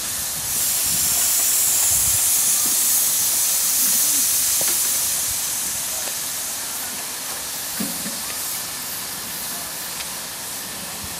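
Steady hiss of steam from a 5-inch gauge live-steam model of the Princess-class locomotive 'Princess Marie Louise' standing on the track, a little louder in the first half and easing off after about six seconds.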